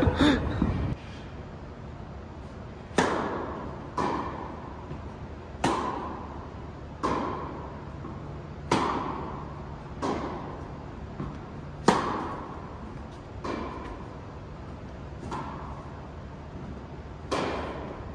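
Tennis rally: a ball struck back and forth with rackets and bouncing on the court, about ten sharp knocks spaced roughly one to two seconds apart, each ringing briefly in a large indoor hall.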